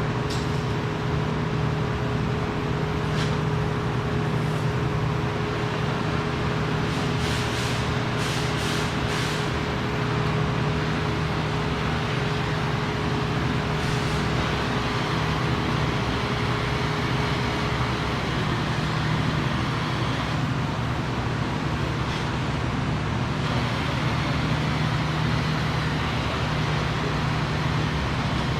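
Steady machinery hum and noise in a workshop, with a steady higher tone that stops about two-thirds of the way through and a few short clicks about a third of the way in.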